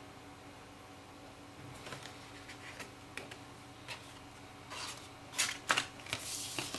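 Hands handling a cardboard album box set and its contents: scattered light clicks and taps that get busier and louder towards the end, with a brief papery rustle near the end, over a faint steady hum.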